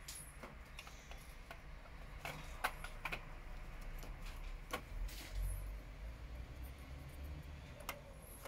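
Handling noise: a handful of scattered light clicks and taps as fingers touch the large electrolytic capacitors on an amplifier circuit board, over a low rumble.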